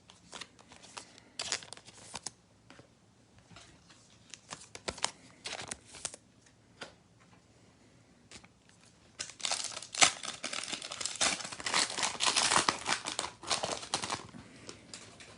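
Foil wrapper of a trading card pack crinkling and tearing open. Light scattered crinkles and clicks at first, then about five seconds of dense crinkling and tearing near the end.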